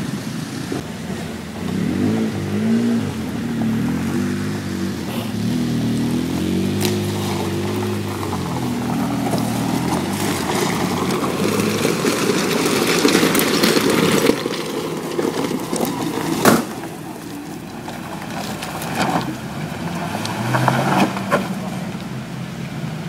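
Hummer H3 engine revving up and easing off as it crawls over a rough off-road trail, with tyres working over loose rock. There is one sharp knock about two-thirds of the way through, and another rev near the end.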